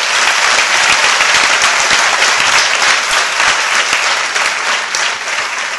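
Large audience applauding, a sustained round of clapping that begins to thin out near the end.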